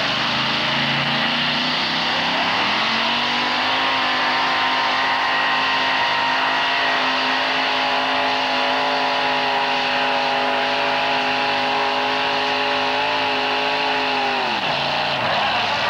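Modified pulling tractor's racing engine at full throttle, dragging a weight-transfer sled. The pitch climbs over the first few seconds, holds high and steady, then drops sharply near the end as the throttle comes off.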